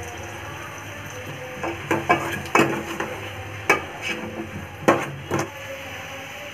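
Metal spoon knocking and scraping against an aluminium cooking pot while its contents are stirred: about seven sharp clanks, most of them between the second and fifth seconds, over a steady low hum.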